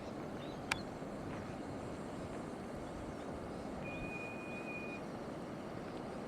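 Steady low rush of the flooded Burdekin River's floodwater. There is a single sharp click under a second in, and a thin, steady high tone that lasts about a second in the middle.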